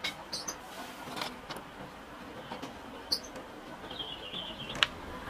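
A white marker pen tapping and scraping on the edge of a trim router's clear plastic base: scattered light clicks, and a short high squeak about four seconds in, just before the loudest click.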